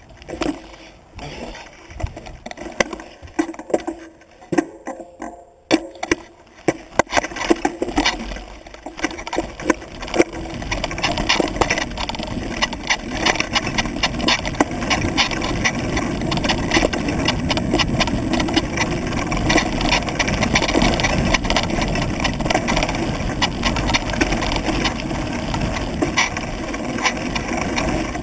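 Mountain bike ridden along a rough forest trail: knobby tyres running over dirt and roots, with the bike clicking and rattling over the bumps. Scattered knocks at first, then from about ten seconds in a steady, louder rush as it picks up speed.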